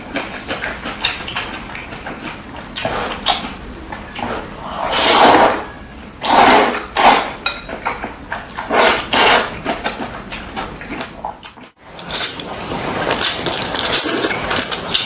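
Noodles being slurped from chopsticks, with wet chewing, in a run of separate loud slurps. After a short break near the two-thirds mark the slurping comes thicker and more continuous.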